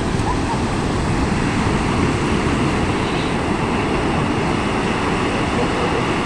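Steady rushing noise of sea surf and wind buffeting the microphone at a beach.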